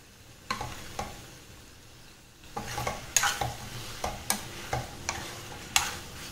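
A spoon scraping and knocking against the pan while stirring tinde (round gourd) curry frying in ghee, over a soft sizzle. The curry has reached the stage where the ghee separates. A couple of knocks come about half a second and a second in, then stirring becomes brisk and continuous from about halfway.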